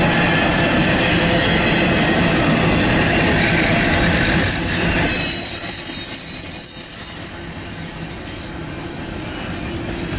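Loaded double-stack container well cars rolling past, a steady rumble and clatter of steel wheels on rail. About halfway through, a thin high-pitched wheel squeal comes in, and the rumble gets quieter.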